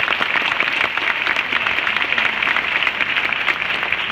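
Stadium crowd applauding: a dense, steady patter of many hands clapping.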